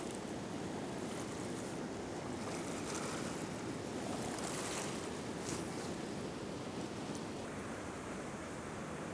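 River rapids rushing steadily over rocks, with a few brief higher hisses in the first half.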